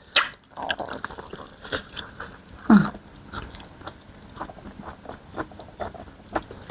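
Close-miked eating: irregular wet chewing and biting sounds with mouth smacks and clicks. There is a brief hummed murmur of voice a little under three seconds in.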